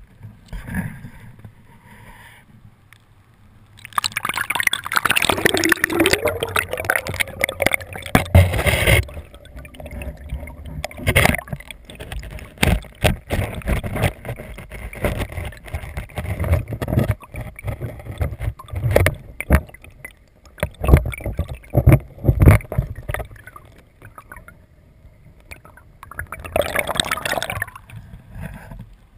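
River water splashing and gurgling against a GoPro camera's housing as it goes into the water. Underwater it picks up muffled knocks and bubbling, with more splashing near the end as it comes up at the surface.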